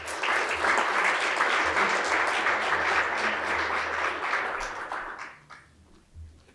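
Audience applauding, steady for about four seconds and then dying away about five seconds in.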